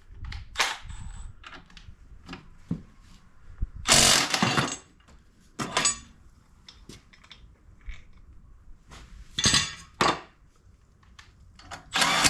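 Tools working on the exhaust fasteners of a 2005 Yamaha TTR90E dirt bike: several short, sharp bursts of tool noise, the loudest about four seconds in, with small metallic clicks and clatter between them.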